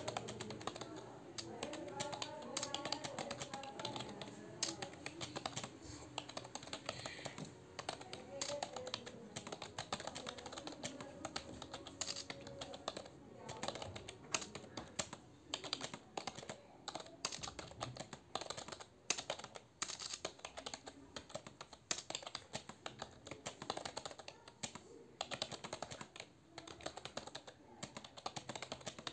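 Touch-typing on a computer keyboard: a rapid, uneven stream of key clicks.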